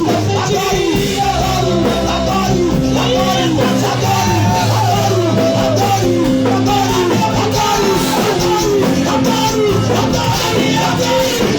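Gospel worship music, with a voice singing a melody over sustained instrumental chords and bass.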